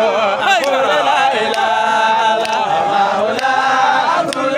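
Voices chanting an Islamic Sufi devotional song, with long, wavering, drawn-out notes.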